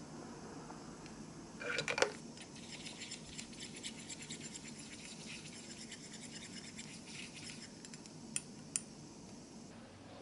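A thin stick stirring thinned paint in a small metal paint dish, scraping and ticking lightly against the metal. There is a brief clatter about two seconds in and two sharp clicks near the end.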